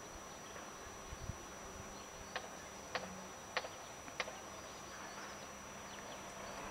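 Faint steady outdoor background with a low buzz, broken by four sharp clicks evenly spaced a little over half a second apart about two and a half seconds in.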